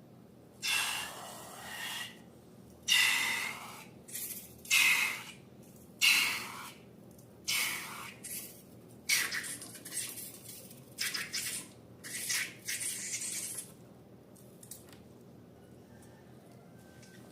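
A series of about a dozen short hissing bursts, each a second or less, coming in quick succession and stopping about thirteen seconds in.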